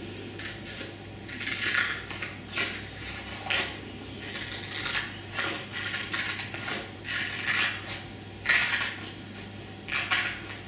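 Scissors snipping through a sheet of paper along a fold, in a run of short separate cuts, roughly one or two a second.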